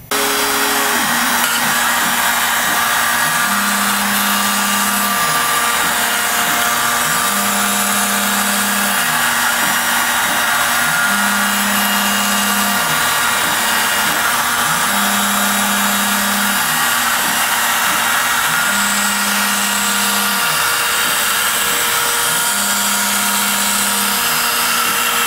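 Shapeoko CNC router cutting the final contour to free a part: the router spindle and the dust extraction on its dust shoe give a steady, loud cutting noise. A lower hum rises in and falls away about every four seconds as the machine makes its moves.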